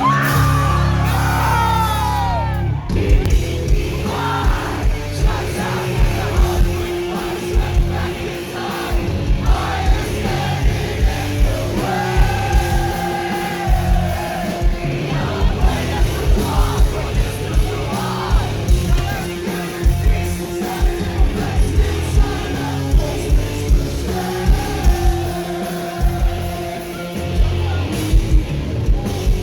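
Live rock band performing at full volume: distorted guitars, bass and drums with sung and shouted vocals. A held chord rings for the first few seconds, then the drums come in with a steady, driving kick-drum beat.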